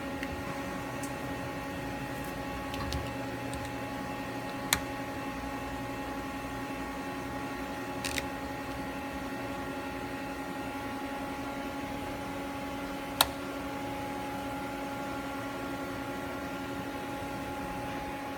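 Daewoo Lynx 210A CNC turning center powered up and sitting idle, giving a steady machine hum, with a few sharp clicks spread through it.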